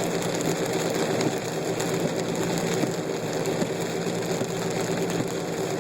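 Steady noise heard inside a car cabin: the engine running under an even hiss, with no changes.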